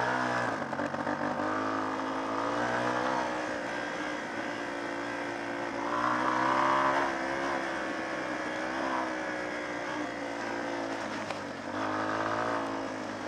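Small trail motorcycle's engine running under changing throttle while riding off-road, rising in pitch and louder about six seconds in, easing back, then picking up again near the end.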